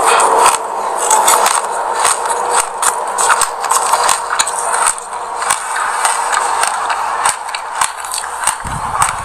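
Close-miked chewing of a mouthful of raw sesame seeds: a dense, crisp crackle of many tiny crunches. A short low thud comes near the end.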